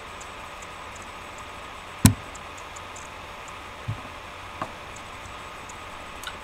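A single loud, sharp knock about two seconds in, then two fainter thumps, over a steady background hiss.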